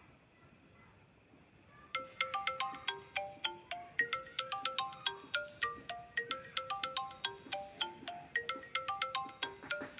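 iPhone ringtone starting about two seconds in: a fast, bouncing run of short marimba-like notes that jump up and down in pitch and keep repeating.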